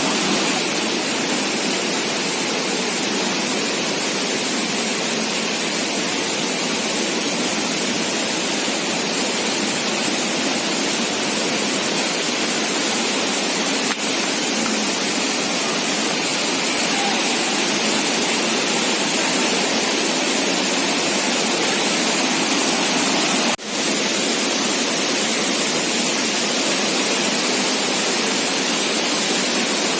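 Waterfall water rushing: a steady, dense hiss of falling water that briefly drops out once about two-thirds of the way through.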